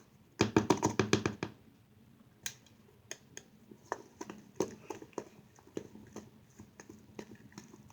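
Hands kneading a sticky shampoo-and-flour slime dough, giving a quick run of wet clicks for about a second near the start, then scattered single clicks and squelches.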